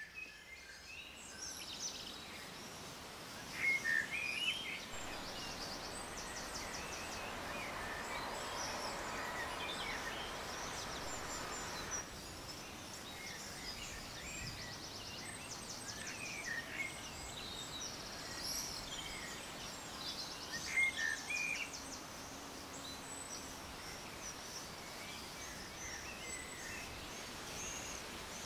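Outdoor ambience with small songbirds chirping and trilling on and off, the loudest calls about four seconds in and again about two-thirds of the way through, over a steady background hiss.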